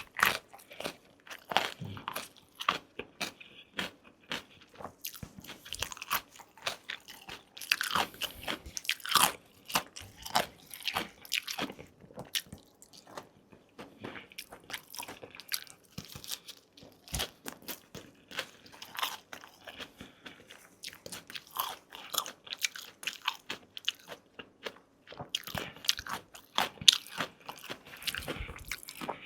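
Close-miked eating sounds: a person biting and chewing food, with many small crunches and wet mouth clicks at an uneven pace.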